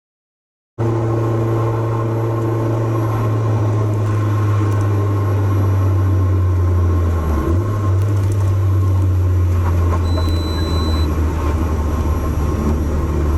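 Mitsubishi Lancer Evolution VIII MR's turbocharged four-cylinder engine and road noise while driving, a steady low drone that dips briefly in pitch about seven seconds in. The engine is running again after its fouled spark plugs were replaced. A faint short high beep sounds about ten seconds in.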